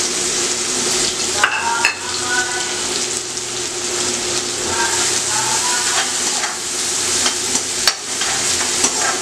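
Chopped onions sizzling steadily in hot oil in a kadhai, the first frying step of a chole masala. A spoon stirs them, and a few sharp clicks of metal on the pan come near the start and near the end.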